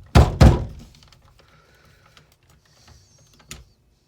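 Two heavy knocks about a third of a second apart as a part stuck fast with gunk inside an old power drill is forced, followed by a few faint clicks and taps of handling.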